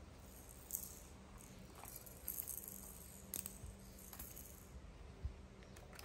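Plastic baby toys and a bead rattle soft-clattering as small hands pick them up and drop them into a fabric basket: scattered clicks and taps with a few short rattles.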